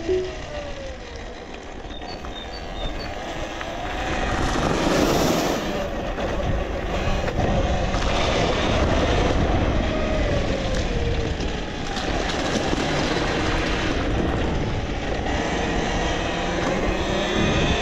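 Talaria Sting R electric dirt bike riding along: its motor whine falls and rises with speed several times over a steady rush of wind and road noise.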